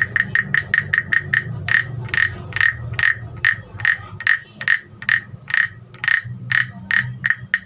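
Carved wooden frog guiro tapped on its back with a wooden stick, giving hollow wooden tocks that ring at one pitch. The taps come quickly, about seven a second, then slow to about two a second after the first second and a half.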